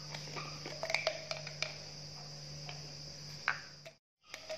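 Faint clicks and plastic handling noises as the screw-on straw lid of a plastic sippy cup is twisted off, over a low steady hum. The sound cuts out briefly about four seconds in.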